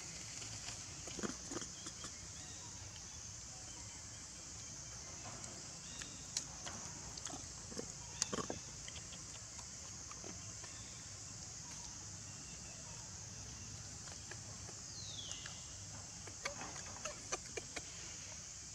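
Forest ambience with a steady high-pitched insect drone, under which a troop of long-tailed macaques makes a few soft clicks and shuffles. One short falling squeal comes about fifteen seconds in.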